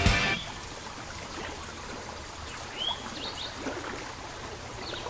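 Nature ambience: a steady trickle of running water with a few short, high bird chirps about three seconds in. Music cuts off right at the start.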